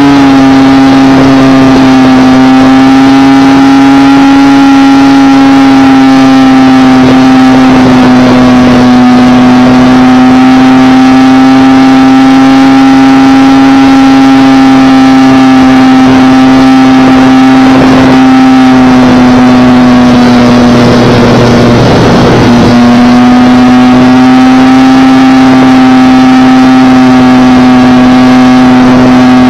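Propeller and motor of an MPx PC-6 Porter radio-controlled model airplane in flight, recorded right behind the spinning propeller: a loud, steady buzzing drone. Its pitch sags slightly about twenty seconds in, with a brief rush of wind noise, then steadies again.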